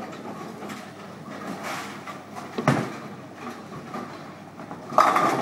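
A ten-pin bowling ball released onto the lane with a thud about halfway through, rolling down the lane with a steady rumble, then crashing into the pins near the end.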